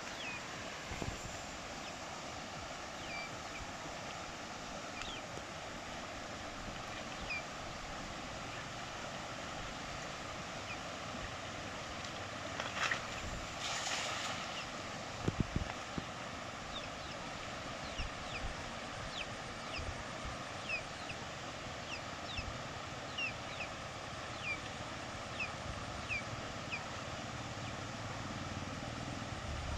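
Steady rush of a fast, flooded river. About 13 seconds in, a thrown cast net lands on the water with a brief splashing hiss lasting a second or two. Short, high chirps come again and again, most densely in the second half.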